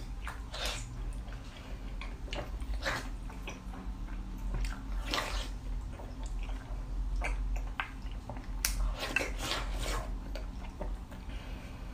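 Close-up wet slurping, sucking and chewing of soft, jelly-like pork fat eaten with a wooden spoon, in irregular smacks about once a second.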